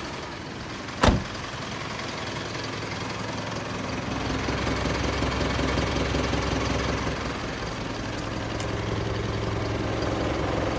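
Isuzu Elf truck's engine idling steadily, with a single sharp click about a second in.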